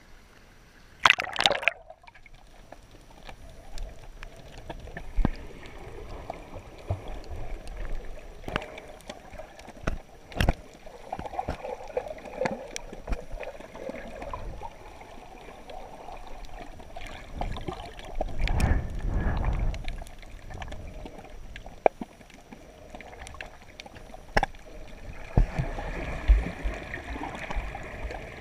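Muffled underwater sound through an action camera's housing: a splash about a second in as the camera goes under, then water swishing with scattered sharp clicks and a low rush of water about two-thirds of the way through.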